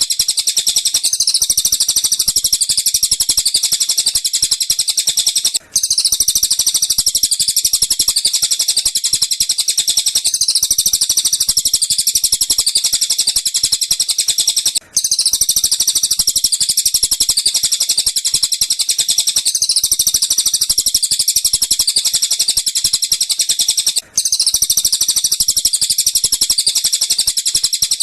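A looped masteran recording of tengkek buto and cililin bird calls: a dense, unbroken, high-pitched chatter and trilling. It breaks off for a moment about every nine seconds and then starts over.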